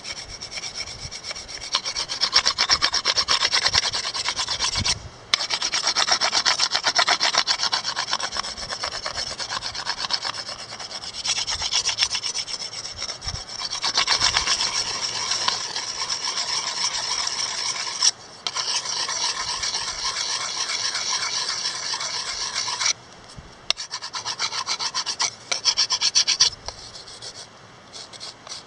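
A rock used as a sanding block rubbed quickly back and forth over a carved cedar spatula, a dry scraping rasp that smooths the wood. The strokes run in long spells with a few short breaks, growing quieter and sparser near the end.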